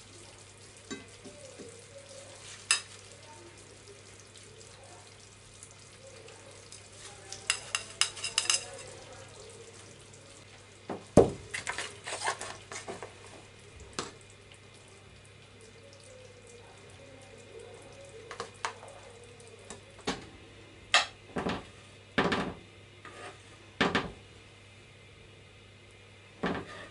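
Scattered clicks and light knocks of serving utensils: kitchen tongs against a plate and salad bowl as salad is served, a plastic container, and near the end a spoon knocking in the frying pan, over a faint steady hum.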